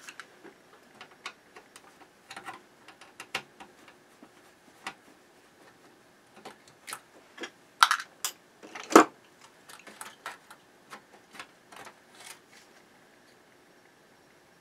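Irregular clicks, taps and knocks of small parts being handled as the LCD display assembly is worked loose from the tuner's front-panel circuit board, with two louder knocks about eight and nine seconds in.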